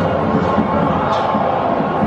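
Film soundtrack music with mixed-in sound effects, played loud through a theatre's sound system during a pause in the film's narration.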